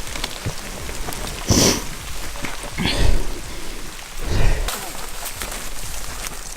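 Footsteps crunching and scuffing over dry ground and brush on a trail, a patter of small crackles, with three louder rustling swells about one and a half, three and four and a half seconds in.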